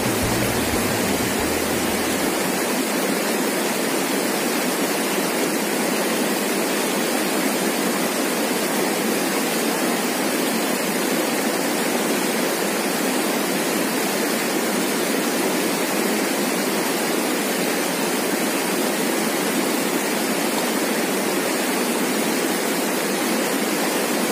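Fast-flowing river rapids rushing over rocks, a steady, even roar of white water.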